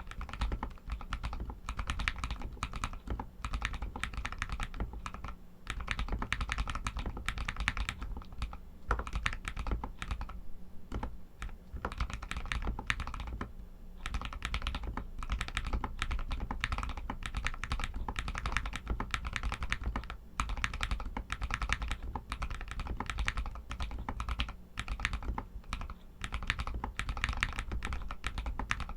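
Rapid, continuous typing on a Royal Kludge RK61 60% mechanical keyboard fitted with Outemu Red linear switches: a dense stream of key clacks, with brief pauses about five seconds in and near the middle.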